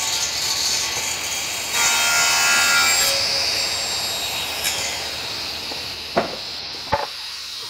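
Power saw cutting oak boards into strips, loudest in the first three seconds and then fading gradually. Two sharp knocks come near the end.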